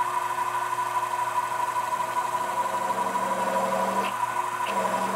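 Sherline mini mill's spindle running as a number 7 twist drill bores a clearance hole in 12L14 leaded steel: a steady motor whine, with a lower hum that comes and goes from about two seconds in and a few light ticks near the end.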